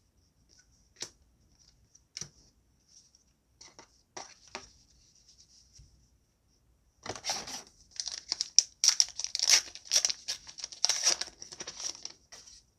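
A few light clicks, then about five seconds of crinkling and tearing as a trading-card booster pack wrapper is ripped open.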